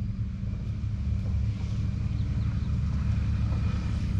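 A motor vehicle running nearby, heard as a steady low rumble with a faint thin whine above it.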